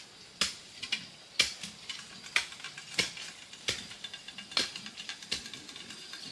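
A series of sharp knocks, about eight in six seconds, unevenly spaced roughly a second apart.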